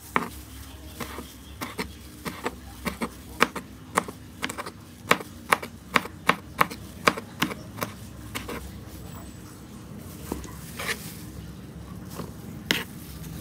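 Kitchen knife chopping blanched winged beans on a plastic cutting board: a run of sharp knocks, about two or three a second, thinning to a few scattered strokes near the end.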